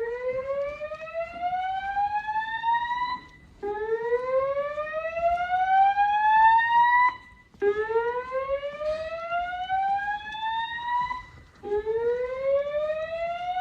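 Notifier voice-evacuation fire alarm sounding its slow whoop tone through System Sensor L-Series speaker/strobes: loud, steadily rising whoops, a new one about every four seconds with a short break between them. This is the evacuation tone that alternates with the recorded fire-evacuation voice message.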